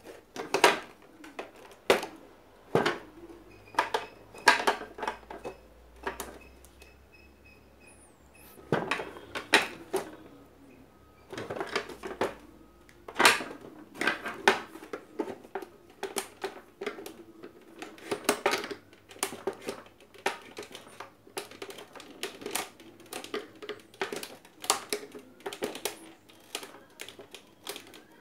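Irregular clicks and knocks of hard parts and tools being handled during a blender repair, with a lull of a couple of seconds about six seconds in.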